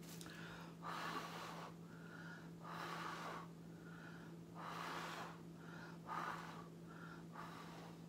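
A person blowing by mouth across wet acrylic paint on a canvas to push it outward, in about five long puffs roughly a second apart.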